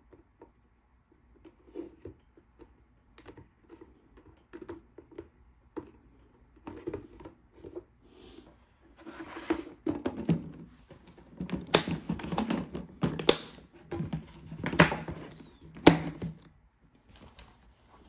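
Hands handling a clear plastic storage box and its lid. It starts with light plastic clicks and taps, and about halfway through turns to louder rubbing and knocking with a few sharp snaps.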